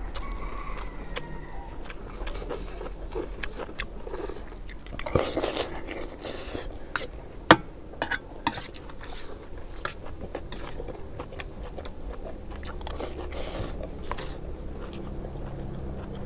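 Metal spoons clinking and scraping on metal trays as two people eat fried rice quickly, with chewing throughout. The clicks come irregularly, the loudest a little past the middle.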